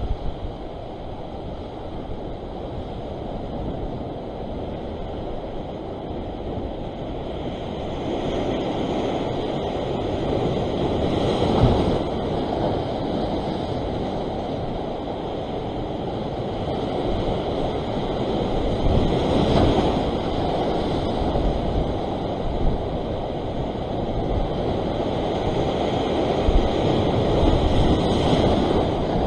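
Ocean surf breaking and washing over a rock ledge in a steady rush, surging louder as bigger waves come in about a third of the way through, again past the middle and near the end, with wind buffeting the microphone.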